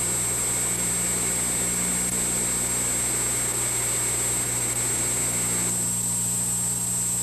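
Steady electrical hum and hiss with no programme sound, the background noise of an analog video-tape transfer. About six seconds in, part of the hiss drops away and a faint high tone stops.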